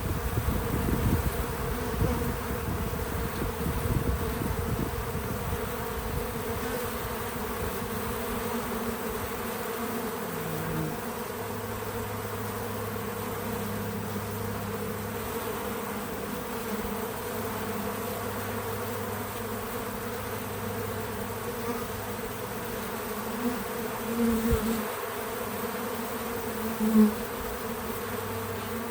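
Bees buzzing steadily around a feeder, a constant drone of many wings, with single bees buzzing loudly close by a few times near the end. A low rumble sits under it in the first few seconds.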